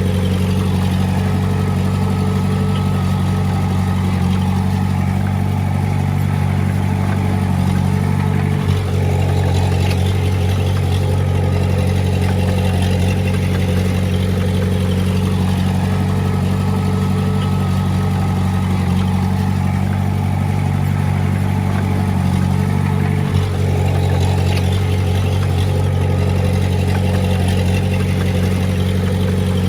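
Diesel engine of heavy road-building equipment (bulldozer or dump truck) running steadily at a constant speed, a deep, even engine drone.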